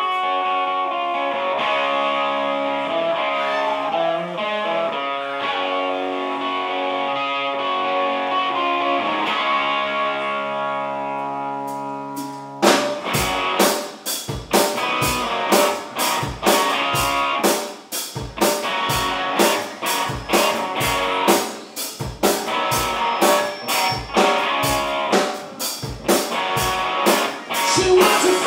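Live rock band playing loud: distorted electric guitar chords ring out alone, then about 12 seconds in the drum kit and bass come in with a steady rock beat.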